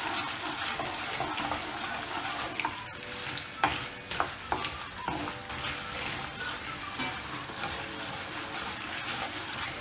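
Urad dal and chana dal frying in hot oil in a kadai, a steady sizzle and crackle as a wooden spatula stirs them. There are a few sharper clicks near the middle.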